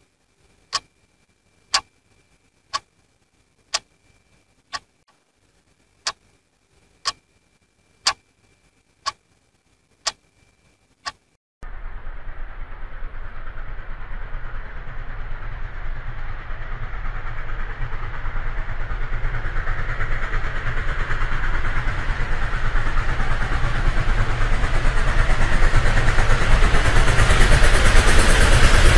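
A clock ticking about once a second. After some eleven seconds the noise of an approaching train cuts in and grows steadily louder to the end.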